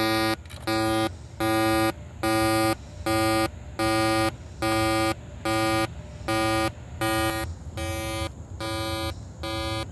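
Dish Network satellite receiver's Point Dish signal-meter tone, played through the TV speaker: a steady, evenly paced beep, about thirteen identical pitched beeps, while the meter shows no signal lock. The beeps grow quieter about three-quarters of the way through as the TV volume is turned down.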